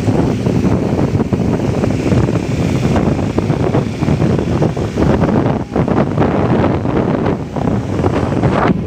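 Wind buffeting the microphone of a camera on a motorcycle riding at speed: a loud, unsteady rush with gusts, over road and engine noise.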